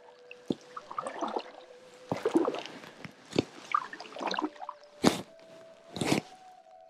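Kayak paddle dipping and pulling through calm water, with water trickling and dripping off the blade. Two sharp knocks come about five and six seconds in.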